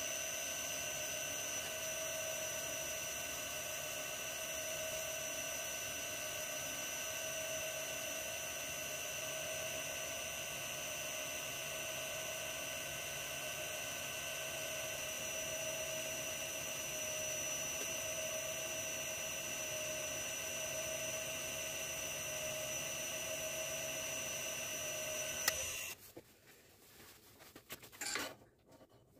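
Woodturning lathe motor running with a steady high whine of several pitches while a miniature brass goblet is sanded on the spinning chuck. Near the end the whine cuts off suddenly with a click as the lathe is switched off, leaving only faint handling sounds.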